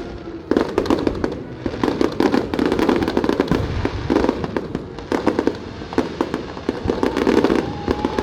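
Fireworks going off in a rapid, continuous barrage of overlapping bangs and crackles, with music playing underneath.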